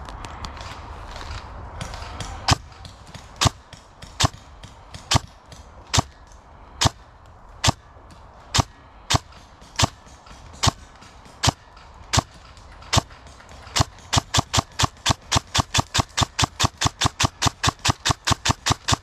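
Airsoft gun firing: about fifteen single sharp shots, a little under one a second, then near the end a fast even string of shots at about six a second.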